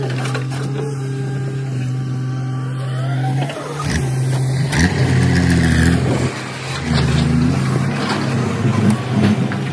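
Diesel engines of a Komatsu PC200 crawler excavator and a loaded dump truck running, with a steady hum at first. From about three and a half seconds in, the engine note rises and falls and revs up louder several times.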